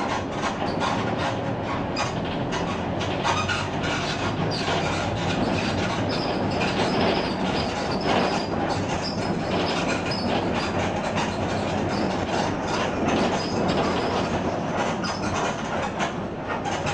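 Mercedes-Benz OF 1721 BlueTec 5 bus's four-cylinder diesel engine running steadily at mid revs on the move, with the differential growling. Many small rattles and clicks sound over the steady drone.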